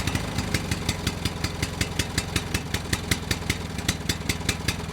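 Small engine idling with a steady beat of sharp ticks, about seven a second.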